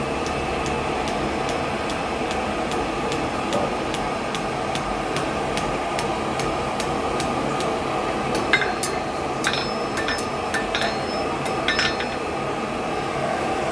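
Blacksmith's hammer tapping hot iron on an anvil, about two to three light strikes a second, with a few louder, ringing strikes in the second half. Under it runs the steady rush of the forge fire.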